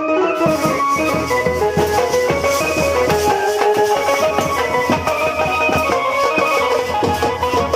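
Instrumental music: a melody of held notes over a steady drum beat.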